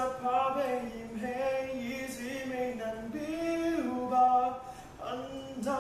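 A young man singing a slow Cantonese song solo, holding long notes with short breaths between phrases.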